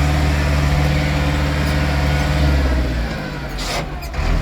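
Ford 5610 tractor's four-cylinder diesel engine pulling steadily while driving. About two and a half seconds in the revs fall away for a gear change, with two short knocks near the end.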